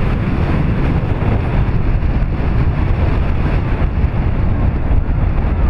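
Wind buffeting the microphone: a loud, steady low rumble with a hiss over it.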